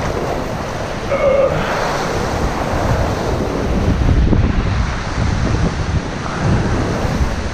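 Surf washing against a rocky shore, with wind buffeting the microphone. A brief pitched sound comes about a second in.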